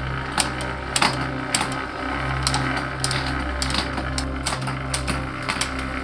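Irregular sharp clicks from a mountain bike's SRAM X01 drivetrain being worked by hand: the trigger shifter clicking and the chain and cassette ticking as the cranks turn, over a steady low hum.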